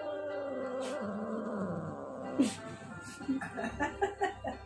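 Ginger-and-white male domestic cat giving one long, wavering, low yowl that slides down in pitch and lasts about two and a half seconds: the angry growling protest of a cat being held against its will. Background music plays under it.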